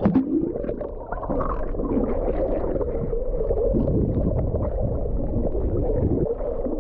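Muffled water noise picked up by a camera held underwater: a dull, gurgling rush with the high sounds cut away.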